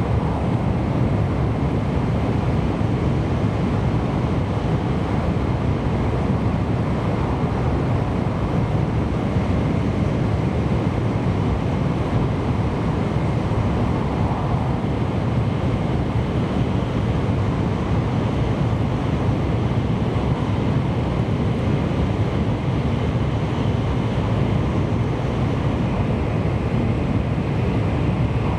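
Steady low rumble and rushing noise inside the cabin of a Kyushu Shinkansen N700-series train running at speed.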